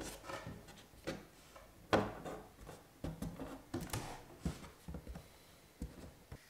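Light, irregular wooden knocks and taps as hands handle and press thin wood strips against a bookshelf's plywood back, with faint rubbing between them; the sharpest knock comes about two seconds in.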